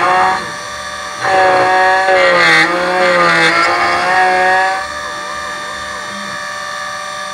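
Miracle A7 Plus automatic key cutting machine cutting a key. The cutter motor whines loudly from about a second in until nearly five seconds in, its pitch sagging and recovering as it bites into the blade. After that it drops to a quieter steady hum with faint wavering motor tones.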